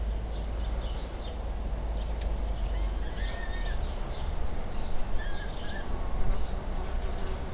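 Peregrine falcon chicks giving repeated short, high, chittering begging calls while the adult feeds them. Under the calls runs a steady low rumble.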